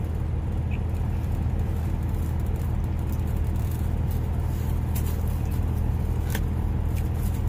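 Steady low hum of an idling engine, heard from inside the vehicle's cab, with a couple of faint clicks in the second half.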